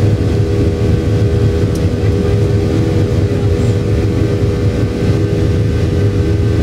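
Boeing 737-800 cabin noise in the climb after takeoff: the CFM56-7B jet engines' steady drone, with a deep rumble under a constant hum.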